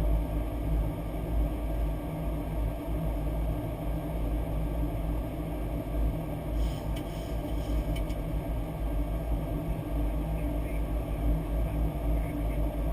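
Steady low rumble of airflow and engine noise on the flight deck of a Boeing 737-800.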